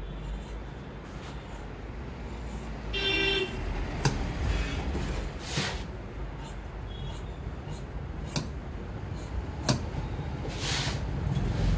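Large steel tailor's shears cutting through woollen suiting cloth on a cutting table: separate blade clicks and a couple of longer hissing strokes as the blades close through the fabric, over a steady low background rumble.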